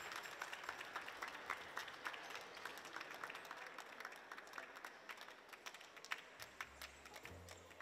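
Scattered audience applause after a live band's song, thinning out as it goes. A low hum comes in near the end.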